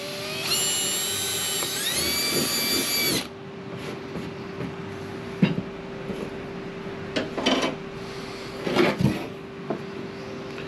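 Cordless drill boring a hole through a hardboard sheet: a motor whine lasting about two and a half seconds that rises in pitch partway through, then stops. After it, a steady low hum with a few light knocks and scrapes.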